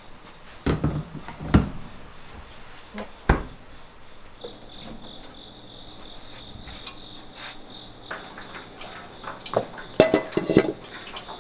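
Kitchen handling sounds. A few sharp knocks come in the first few seconds as a plastic container is pulled out from under a stainless-steel counter. A thin high steady tone starts partway through, and near the end there is a quick clatter as a steel wok and wooden spatula are handled.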